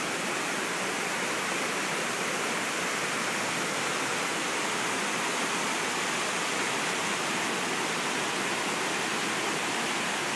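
Steady rush of the Minoo (Mino) Waterfall's falling water, an even, unbroken roar of noise.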